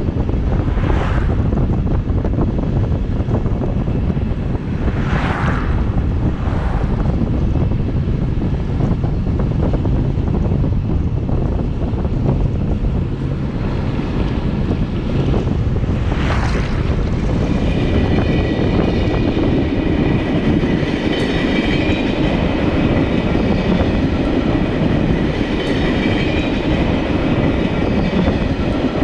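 A train running on the rails: a steady, loud rumble with a few brief whooshes early on, and a high whine of several steady tones joining in about halfway through.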